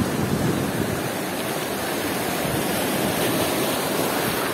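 Black Sea storm surf breaking and washing up a shingle beach of flat shale stones, a steady rushing noise.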